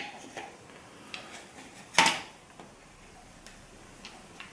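Light clicks and taps from handling the camo polycarbonate shoulder stock of an SMK Victory CP2 CO2 air pistol as it is fitted on, with one sharper plastic knock about two seconds in.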